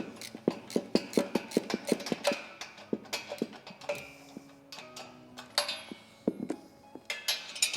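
Hand ratchet clicking in quick runs as a 24 mm rack bolt is turned by hand, with a short pause partway through, over soft background music.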